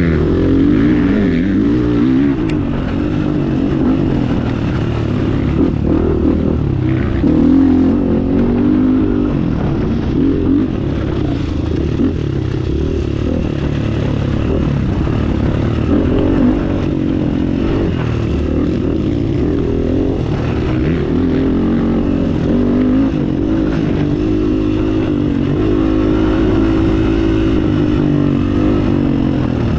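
Off-road motorcycle engine running along a trail, its pitch rising and falling with the throttle.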